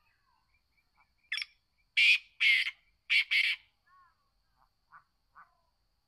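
Black francolin calling: one short note, then four loud, harsh notes in two quick pairs, followed by a few faint short chirps.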